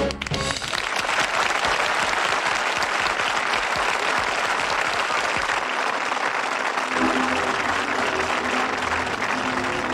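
Studio audience applauding after a song ends, a dense steady clapping. Band music comes back in underneath it about seven seconds in.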